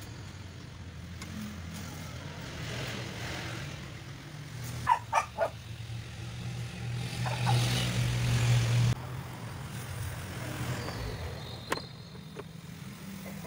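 Mitsubishi 4D56 diesel engine running at idle, a steady low hum. Three sharp knocks come about five seconds in, and a louder stretch of the hum ends abruptly about nine seconds in.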